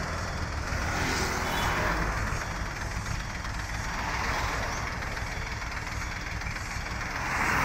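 Diesel truck engine running at idle with a steady rumble, with a hiss of traffic that swells a little near the end.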